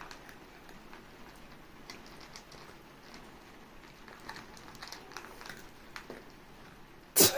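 Quiet room with faint scattered clicks and ticks, then a sudden short loud burst of noise near the end.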